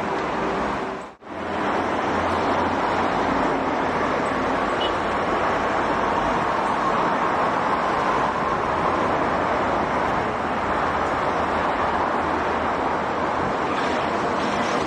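Heavy traffic on a multi-lane highway: a steady rush of tyres and engines from cars and trucks passing. The sound cuts out briefly about a second in, then resumes.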